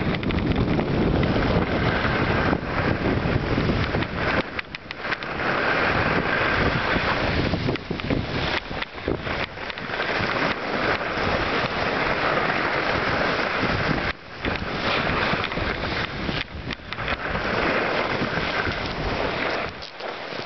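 Wind buffeting the microphone of a skier moving downhill, a steady rumble under the hiss of skis on packed snow. The hiss swells and fades every few seconds.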